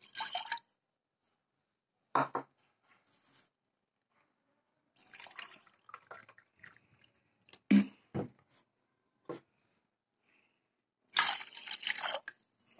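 Water poured from a glass into a frying pan, in two pours, with a few short knocks of the glass against the pan between them.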